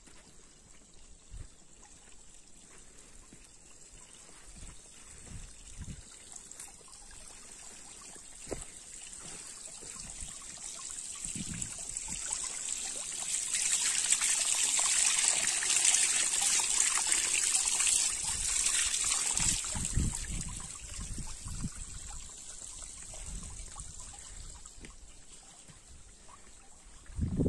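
A small mountain spring trickling and splashing over rocks and onto a hand held under the flow. It grows louder about ten seconds in, is loudest around the middle and fades away again later, with a few low thumps scattered through.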